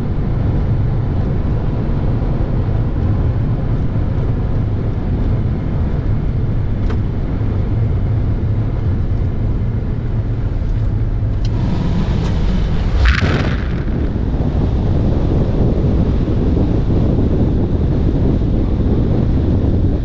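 Lexus RX400h driving across a salt flat: a steady low rumble of tyres and drivetrain, heard from inside the cabin. About twelve seconds in there is a brief hissing burst, and after it wind buffets the microphone.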